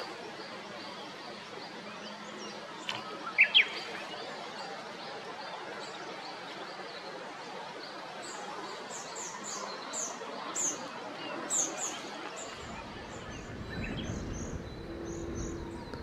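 Small songbirds calling: two loud, sharp chirps about three seconds in, then a run of high, thin notes in the second half, over a faint, evenly repeated note. A low rumble comes in over the last few seconds.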